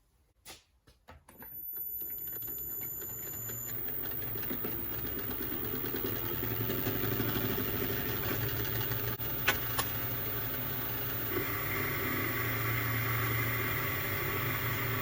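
A few clicks, then a milling machine's spindle motor starts about a second and a half in and runs steadily, with a high steady whine joining a couple of seconds later. About eleven seconds in the sound thickens, as the cutter works the steel.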